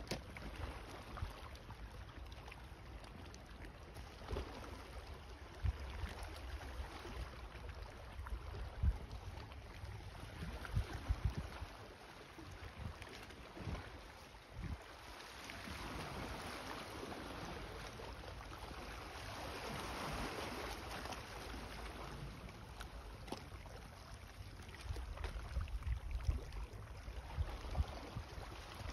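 Wind rumbling on a phone microphone, with occasional bumps, and a rushing sound that swells and fades about halfway through.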